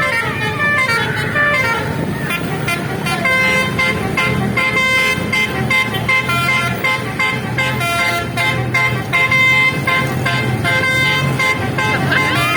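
Bus's basuri multi-tone musical horn (telolet) playing a fast, rhythmic tune of short stepped notes, with the bus's engine running underneath.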